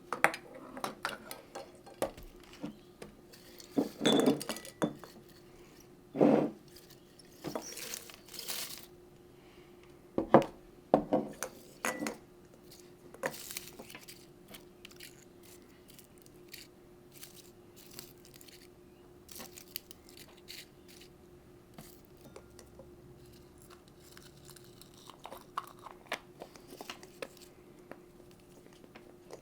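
Irregular clicks, clinks and crinkly rustles of clear plastic fillable baubles and dried everlasting daisies (strawflowers) being handled, busiest in the first half and sparser later.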